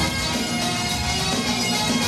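Great Highland bagpipes playing a tune over their steady drones, the melody notes changing several times a second.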